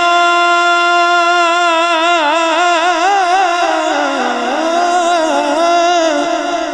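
A man singing a Punjabi naat into a microphone, holding one long, wavering note without words. About four seconds in the note slides down in pitch, then climbs back up.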